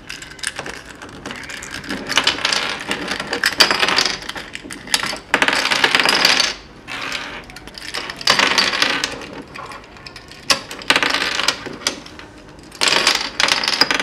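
Plastic pieces of a 3x3 Rubik's Cube clicking, snapping and rattling as the cube is pulled apart piece by piece, in irregular bursts of clatter with short pauses between.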